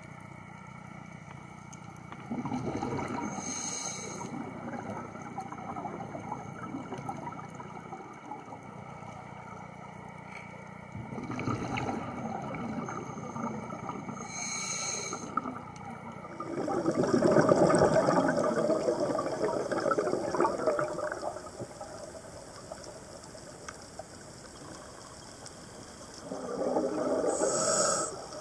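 Scuba diver breathing through a regulator underwater: four bubbling swells of exhaled air a few seconds apart, over a steady underwater wash.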